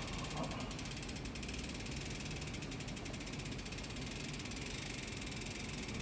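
Bicycle freewheel pawls ticking rapidly and steadily as the cranks are turned backward to run the chain round during lubrication.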